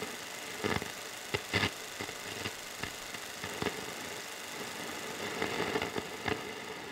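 Old valve radio static as the tuning dial is turned: a steady hiss with irregular crackles and pops.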